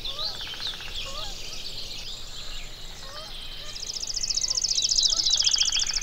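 Several songbirds chirping and whistling together. In the second half one bird gives a loud, rapid trill that is the loudest sound.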